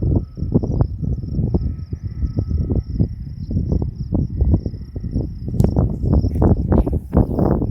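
Strong, gusty storm wind buffeting the microphone in uneven rumbling pulses, with a steady thin high tone running behind it.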